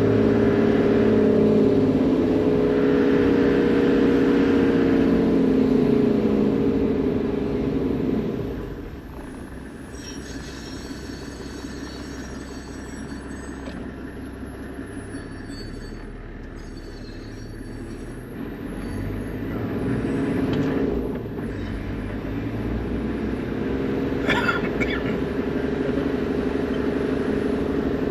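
Toyota Land Cruiser HZJ78 with its 4.2-litre six-cylinder diesel, driving. The vehicle noise holds steady pitched lines that bend up and down. It drops off for about ten seconds in the middle, then builds again, with a short sharp noise about 24 seconds in.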